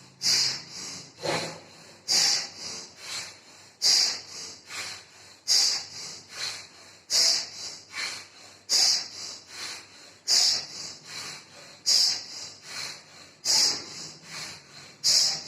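Forceful rhythmic breathing through the nose, one nostril at a time, in alternate-nostril bhastrika pranayama. Loud breaths come about every second and a half, each with a softer breath between.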